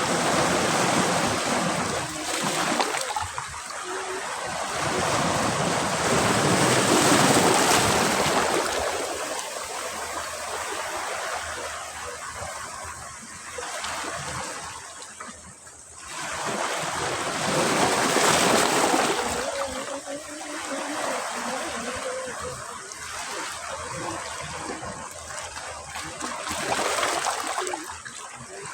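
Sea waves breaking and washing up a beach in slow surges, swelling loudest about seven and eighteen seconds in, with quieter wash and a brief lull between.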